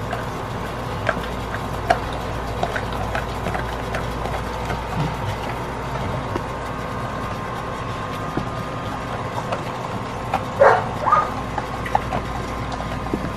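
A pitbull-mix puppy chewing and gnawing a piece of raw pork, with scattered short crunches and clicks, over a steady hum. A few louder bursts come near the end.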